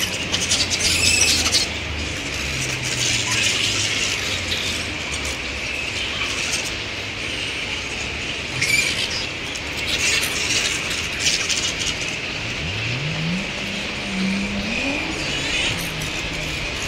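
Grey-headed flying foxes squabbling at their roost, with repeated high squeals and chattering screeches. Beneath them runs a low engine drone that rises in pitch about twelve seconds in.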